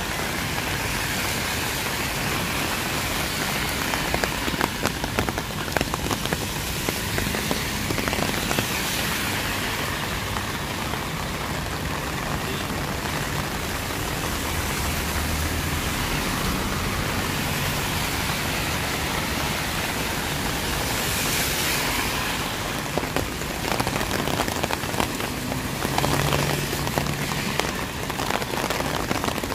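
Steady heavy rain falling on a city street, with scattered sharper drop impacts and now and then the low hum of a passing vehicle.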